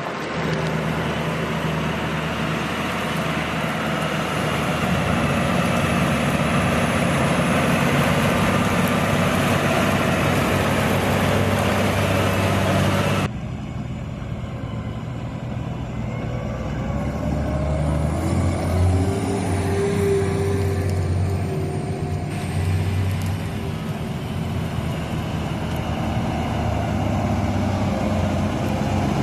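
New Holland T7 tractor diesel engine running steadily while ploughing. About 13 seconds in, the sound changes abruptly to a quieter, different engine note.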